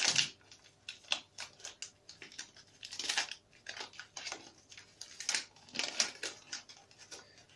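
A chocolate bar's wrapper crinkling and crackling as it is torn and pulled open by hand, in irregular bursts that are loudest about three seconds in and near six seconds.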